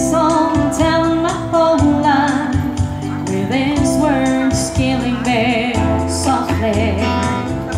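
A woman singing a slow ballad live into a microphone, drawing out long notes with vibrato, over amplified backing music.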